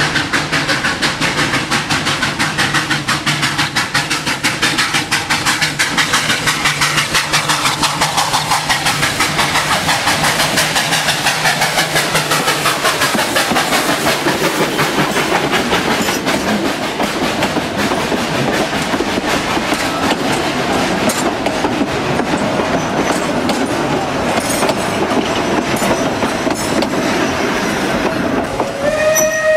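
Steam locomotive working hard at full steam, its exhaust beating in rapid, regular chuffs as it passes close by, followed by passenger coaches rolling past with wheels clattering over the rail joints. Near the end a steam whistle starts to sound.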